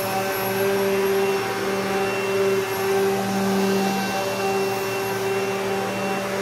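Wood router running on a router sled while flattening a slab, with the shop's dust collection drawing air through the router's intake. It is a steady machine hum and rush of air, and the hum swells and fades every second or so.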